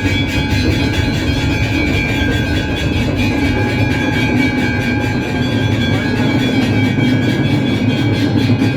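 Temple bells and drums of an aarti sounding together in a loud, steady, continuous clangour, with a few bell tones ringing through a fast, even beat.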